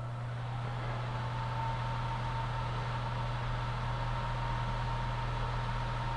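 FBK-250 gas fireplace blower kit's crossflow blower fan spinning up and then running steadily, with a low motor hum and a thin whine that rises briefly as it comes up to speed before settling.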